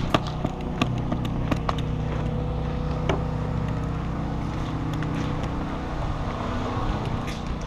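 Steady mechanical hum, with a few scattered sharp cracks of airsoft shots and BB hits.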